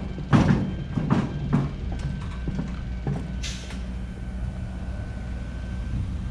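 Footsteps clanging on an aluminium truck loading ramp, three heavy steps in the first second and a half, over a steady low rumble; a brief hiss about three and a half seconds in.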